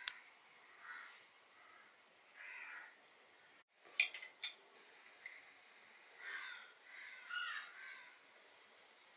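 Several short bird calls at irregular intervals, faint in the background. A cluster of sharp clicks about four seconds in is the loudest sound.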